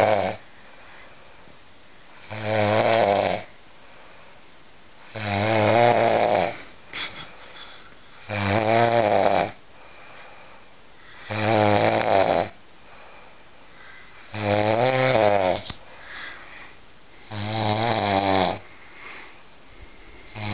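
Loud snoring: a long snore with a wavering pitch about every three seconds, quiet between snores.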